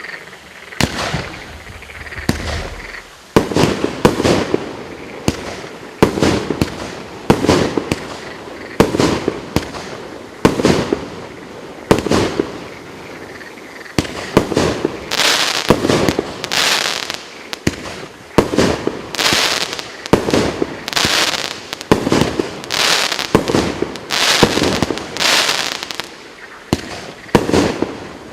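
30 mm 49-shot fireworks cake firing in a steady sequence: a sharp shot about every second and a half, with hissing crackle after many of the shots through the middle of the run.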